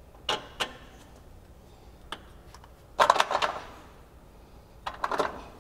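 18 mm socket wrench and end wrench working the bolt of a UTV's rear radius rod: two sharp metallic clicks, then a burst of rapid clicking about three seconds in, the loudest part, and a shorter burst near the end.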